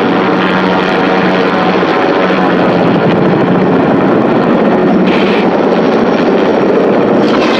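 Helicopter hovering close by, its rotor and engine running loudly and steadily.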